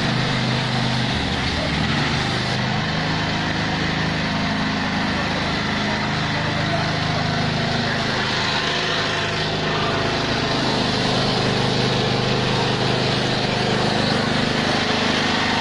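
An engine-driven pump running steadily, its pitch shifting slightly a couple of times, under the hiss of disinfectant spraying from a pressure hose.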